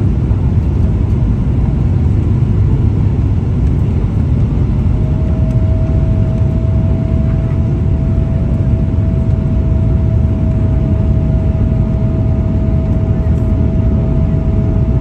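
Steady cabin noise of a Boeing 777-300 airliner flying low on its approach: a loud, deep rumble of engines and airflow, with a steady whine joining about five seconds in.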